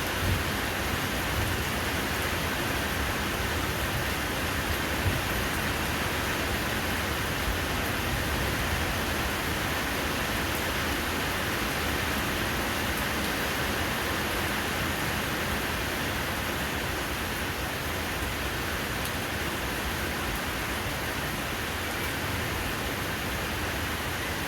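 Steady rain falling, an even hiss of drops pattering on surfaces, with a couple of faint knocks of drips in the first few seconds.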